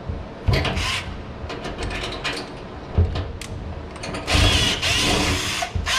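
Cordless drill boring through the thin sheet metal of a range hood in short runs, the longest about a second and a half near the end, with a sharp knock about three seconds in.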